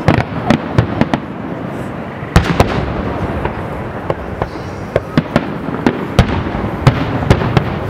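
Aerial firework shells bursting, many sharp bangs in quick irregular succession over a continuous background noise; the loudest come about two and a half seconds in and near seven seconds.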